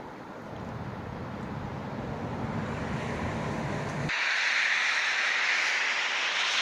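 Steady outdoor wind and road-traffic noise that grows louder. About four seconds in, the low rumble cuts out abruptly and a brighter hiss takes over.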